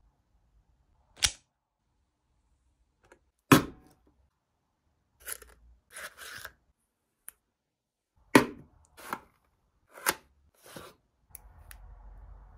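Unboxing handling sounds: sharp taps and clicks of hard objects being set down or snapped, a few seconds apart, between short rustles of packaging, with a low scratchy rubbing near the end.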